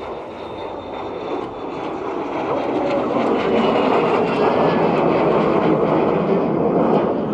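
Jet aircraft, taken to be a de Havilland Vampire, flying past in a display. Its engine noise builds to a peak about four seconds in and eases slightly near the end, with a faint whine falling in pitch as it passes.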